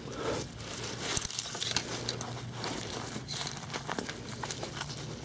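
Soil, roots and vines crackling and rustling as hands dig and tug at a sweet potato lodged firmly in the ground, with scattered sharp snaps and clicks.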